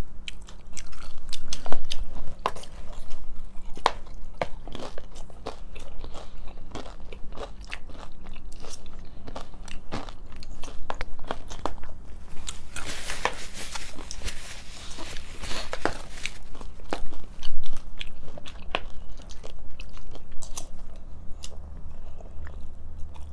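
Close-up eating sounds: crunching into hard taco shells and chewing, with many small sharp clicks and a noisier stretch of crunching around the middle.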